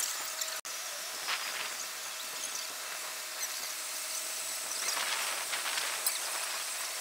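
Outdoor city ambience: a steady hiss of background noise with faint distant sounds, briefly cutting out about half a second in.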